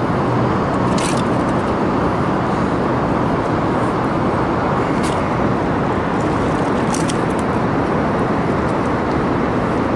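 Steady, loud rushing roar of river water pouring over a low-head dam.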